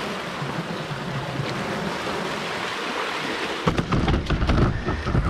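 Sea surf washing in and surging over the stone steps of a sea wall, a steady rushing wash. From about two-thirds of the way in, loud irregular low thumps on the microphone.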